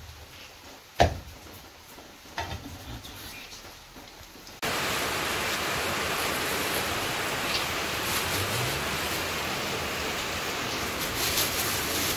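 Two sharp chops of a cleaver through goat meat onto a wooden chopping block, then about four and a half seconds in a steady hiss of heavy rain suddenly takes over.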